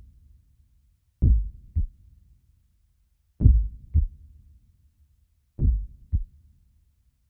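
Heartbeat sound effect: three slow double thumps, each a deep thump followed by a lighter one about half a second later, repeating a little over every two seconds.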